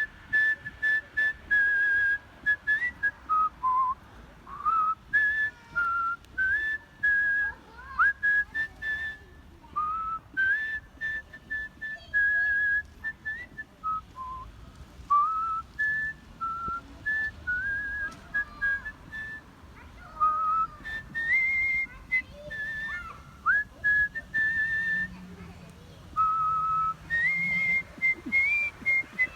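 A person doing artistic whistling, playing a melody of clear held notes joined by slides and quick ornaments, in short phrases with brief breaths between them and rising to the highest notes near the end.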